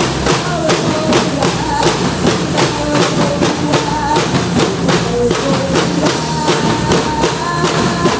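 Percussion band playing: drums keeping a steady, quick beat under a held melody line.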